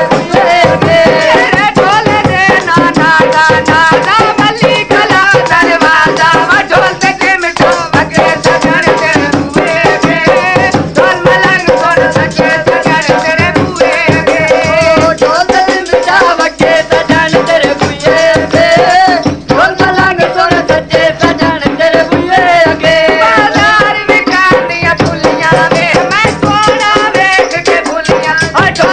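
Punjabi-Saraiki folk song (goon mahiye): a voice singing a wavering melody over fast, steady drum and jingling chimta percussion.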